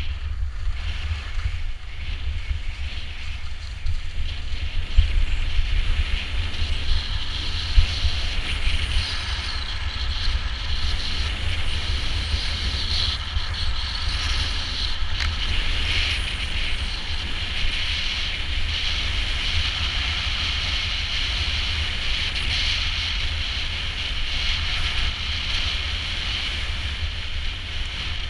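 Wind buffeting the camera's microphone with a low rumble, over the hiss of skis sliding and carving on snow, which swells and fades as the skier turns.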